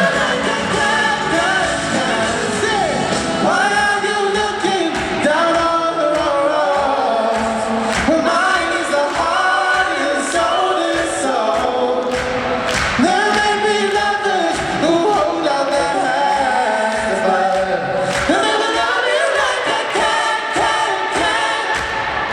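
Live pop-soul band music with several voices singing together, choir-like, over the band, heard through an arena sound system.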